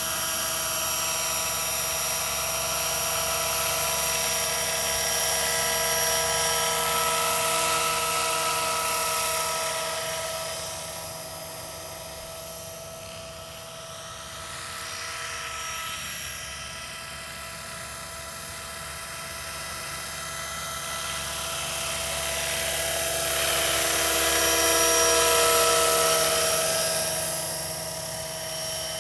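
Scale radio-controlled AS350 model helicopter in flight: a steady high whine with rotor noise. It fades as the model moves off about a third of the way in, then grows loud again as it passes close near the end, its pitch sliding as it goes by.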